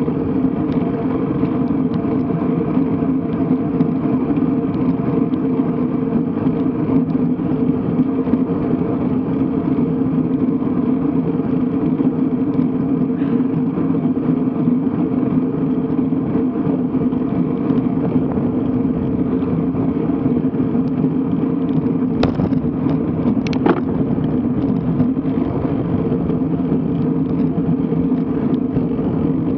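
Steady riding noise picked up by a road bike's mounted action camera on a climb, a constant hum with road and air noise, and two sharp clicks a little past two-thirds of the way in.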